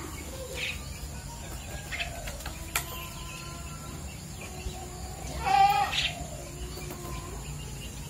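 A 12-day-old starling chick gives one loud, harsh, raspy squawk about five and a half seconds in, with a few faint short calls and clicks before it: a distress call while a leg ring is forced onto its foot.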